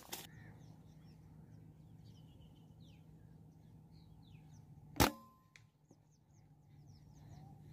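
A single PCP air rifle shot about five seconds in, one sharp crack, with a fainter click about half a second after it. Small birds chirp throughout.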